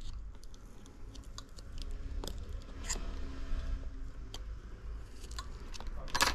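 Small clicks and scrapes of tools and phone parts being handled on a repair bench, with a louder crackling click near the end, over a low steady hum.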